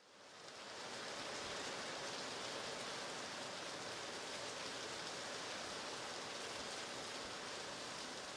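Steady rainfall, an even hiss of falling rain, fading in over about the first second.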